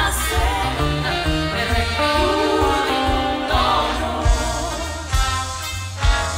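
Live big band music with a singer over bass and drums, with sharp drum accents in the second half, heard as a direct feed from a digital mixing console.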